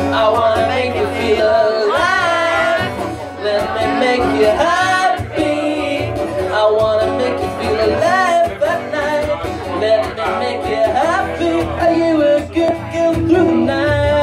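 A man singing a long, sliding vocal line over a strummed acoustic guitar, performed live and picked up by a phone's microphone in a small room.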